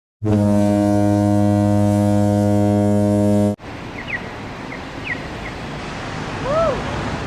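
A deep, steady horn blast held for about three and a half seconds, then cut off abruptly. Afterwards a quieter outdoor noise with a few short faint chirps and one brief rising-and-falling tone.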